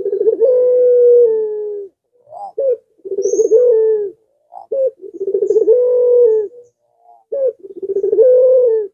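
Puter pelung, a Barbary (ringneck) dove, cooing over and over: four long drawn-out coos, each led by a short rising note.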